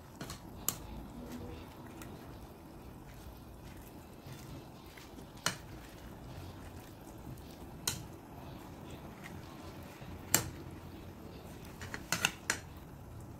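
A white ladle clicking against a stainless steel cooking pot as it presses greens down into the broth: a few single sharp taps spread out, then a quick run of about four near the end, over a low steady background.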